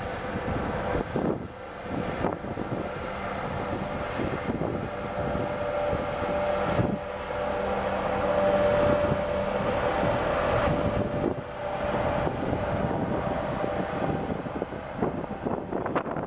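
Large container ship passing close by, its machinery giving a steady drone with a couple of humming tones, mixed with wind rumbling on the microphone.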